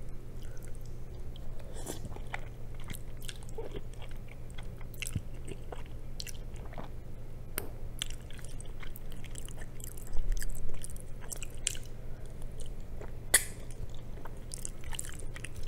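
Close-up chewing of a mouthful of black bean noodles, with many small wet mouth clicks and smacks over a steady low hum. There is a dull low knock about ten seconds in and one sharper click about thirteen seconds in.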